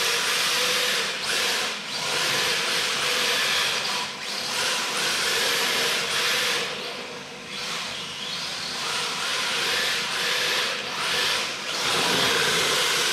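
Electric RC drift car on an MST chassis sliding around on a tiled floor: its drift tyres scrub across the tiles in a continuous hiss that swells and eases as it slides through the turns, over a faint steady electric motor whine.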